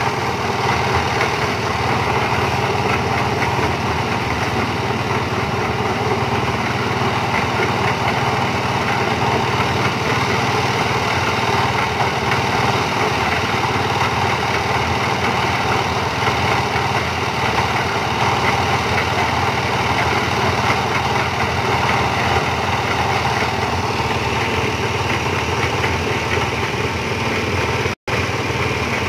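Engine-driven concrete mixer running steadily on test, its small engine turning the drum at a constant speed. The sound breaks off for an instant near the end.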